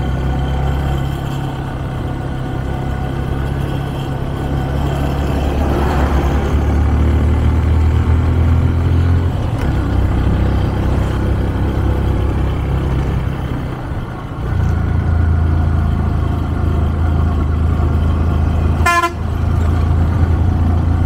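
Motorcycle riding along a road: steady engine and wind rumble that dips briefly about two-thirds of the way through, with one short horn toot near the end.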